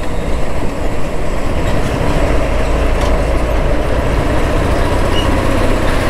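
Royal Enfield Classic 350's single-cylinder engine running while the motorcycle rides in traffic, a steady low rumble mixed with wind and road noise over the microphone.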